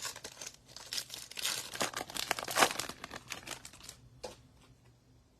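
A foil trading-card pack wrapper being torn open and crinkled, a dense rustling crackle lasting about three and a half seconds, followed by a single sharp click about four seconds in.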